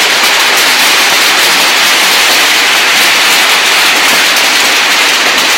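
Loud, steady hiss of heavy rain falling.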